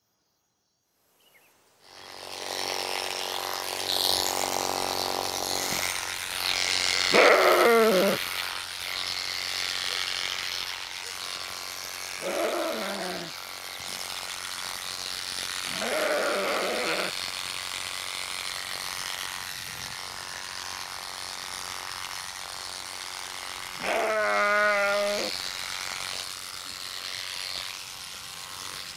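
Electric livestock clippers buzzing steadily as a sheep is shorn, starting about two seconds in, with the sheep bleating four times over the hum.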